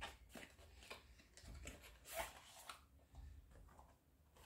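Faint scraping and rustling of a paperboard box as its inner box is slid out of the outer sleeve by hand, in a few short scrapes, the clearest about two seconds in.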